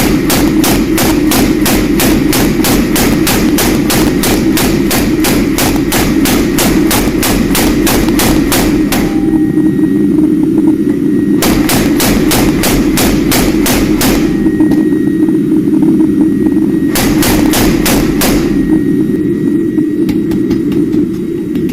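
Rapid, evenly spaced hammer blows on steel, about four a second, in three runs: a long one, a shorter one about halfway, and a brief one near the end, over a steady low hum.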